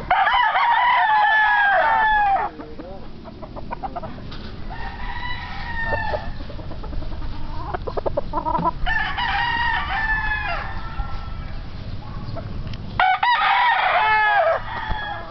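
Gamefowl bullstags (young game roosters) crowing one after another: a loud crow at the start, a fainter one about five seconds in, another around nine seconds, and a loud crow near the end.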